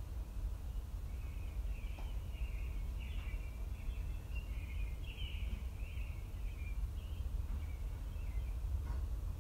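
Steady low background rumble with faint, irregular high chirps over it, busiest in the middle of the stretch.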